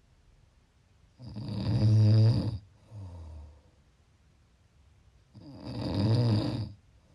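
A person snoring: two loud snores about four seconds apart, each lasting about a second and a half. The first is followed by a short, quieter breath.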